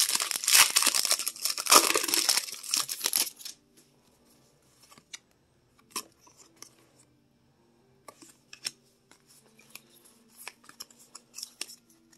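Foil booster-pack wrapper crinkling and tearing open for about the first three seconds, then quiet, with scattered soft clicks and rustles of trading cards being handled.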